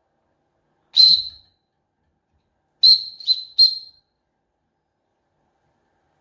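Small steam whistle on the Wilesco D16el model's boiler blowing: one short high toot, then three quick toots about two seconds later.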